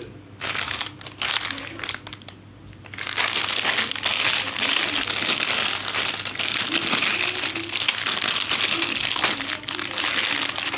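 Candy packaging crinkling as it is handled: a few short rustles, then continuous crinkling from about three seconds in.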